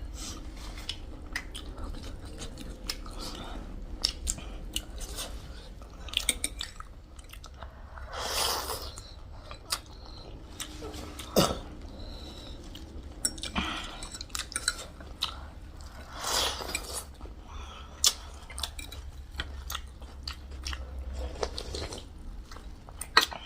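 Close-miked chewing and biting of food, with many small wet mouth clicks and a few crunches, and two longer noisy sounds about a third and two thirds of the way through.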